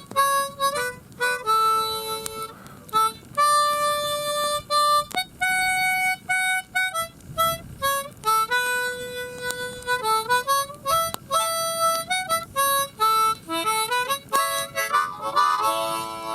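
Harmonica playing a slow melody of held single notes and chords, with a quick warbling run of short notes near the end.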